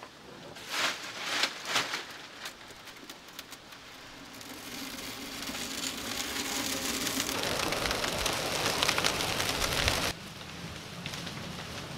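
Dry leaves rustling and crunching as an armful is pressed into a pit, then a dry-leaf fire catching and crackling, growing steadily louder. Near the end it drops suddenly to a quieter crackle.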